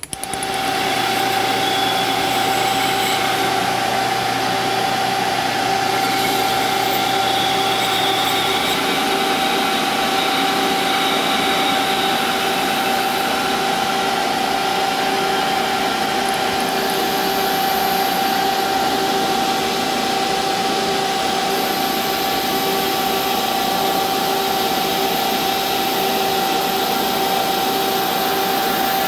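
Grizzly G0602 metal lathe running with a steady high whine while a boring bar cuts a recess into a spinning aluminum part. A low hum drops out about nine seconds in.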